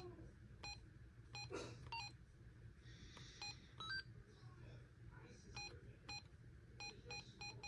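Midland X-Talker T31VP two-way radio giving a string of short, faint electronic key beeps as its front buttons are pressed to step through its menu.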